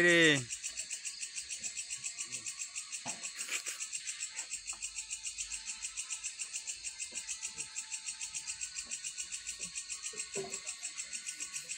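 Crickets chirping in a steady, fast pulsing trill, with a few faint knocks.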